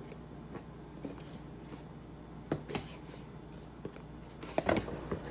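Fingers handling and opening a cardboard product box: scattered light taps and scrapes on the cardboard, with a louder rustle near the end.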